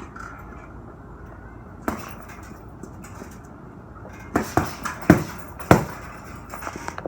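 Punches landing on a heavy punching bag: a single hit about two seconds in, then four hard hits in quick succession a little past halfway.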